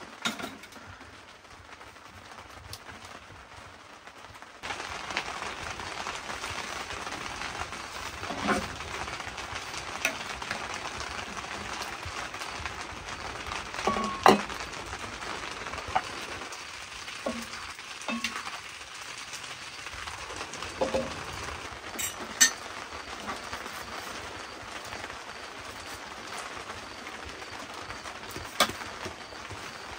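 Food sizzling in a frying pan, a steady hiss that comes up about four and a half seconds in, with a utensil clinking and scraping against the pan now and then.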